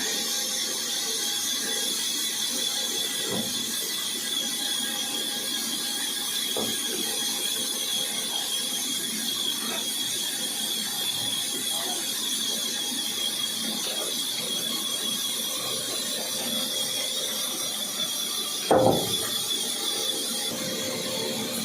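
Woodworking machine running steadily with a high whine, with light scattered knocks and one louder knock near the end.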